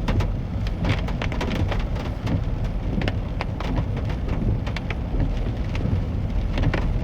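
Lifted 4x4 Chevy pickup driving through deep floodwater over the road: water splashing and spraying against the body and wheel wells in a dense, irregular patter over a steady low rumble.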